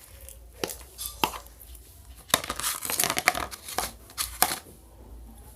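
Homemade glue slime being stirred in a container: irregular sticky crackles, squelches and clicks as it pulls away from the sides. These are busiest in the middle and thin out near the end. The slime is still slightly soft and sticking to the pot.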